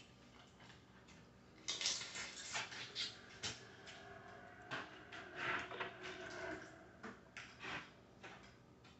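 Boiled crawfish being peeled and eaten: shells cracking and crackling, with chewing and mouth noises. It comes as a run of clicks and crunches that starts about two seconds in and dies away near the end.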